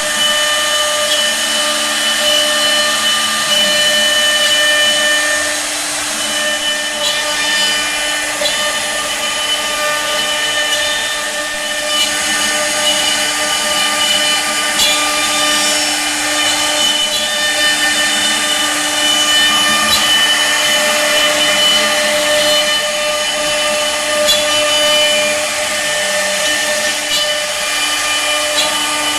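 CNC router spindle running at a steady pitch while its bit cuts into wood, a whine over a cutting hiss, with a few faint ticks.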